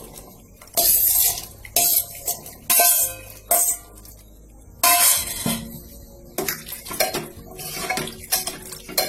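Chickpea-boiling water poured into the chickpea masala in a pot in several short splashing spurts, then a metal spoon stirring the curry with rapid knocks and scrapes against the pot.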